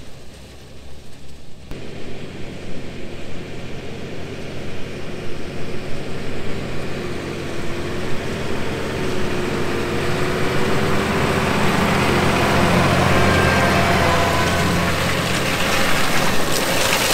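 Tractor engine running under load while pulling a Horsch Terrano stubble cultivator through the field: a steady low engine drone with the rushing noise of the tines in the soil, growing louder over the first dozen seconds.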